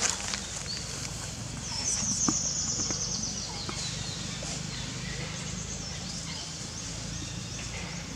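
Outdoor ambience: a steady low hum, with a brief high, rapid trill about two seconds in and a few light clicks.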